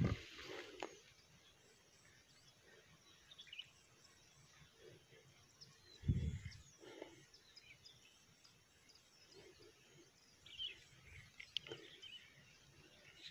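Quiet outdoor ambience with a few faint, short bird chirps scattered through it, and two dull low thumps, one at the very start and one about six seconds in.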